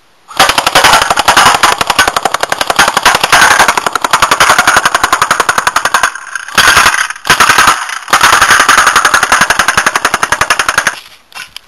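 AK-47 BB gun shooting 6mm plastic pellets on fully automatic: a rapid stream of sharp shots in a long burst of about six seconds, two short bursts, then another burst of about three seconds.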